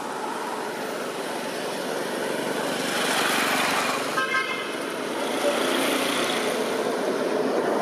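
Road traffic going by, its rushing noise swelling about three seconds in, with a short stuttering horn toot about four seconds in.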